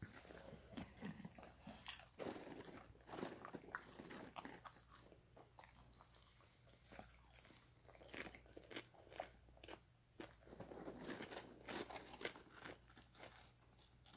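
A dog crunching and chewing popcorn and licking its lips, in several bursts of quick, sharp crunches with short pauses between.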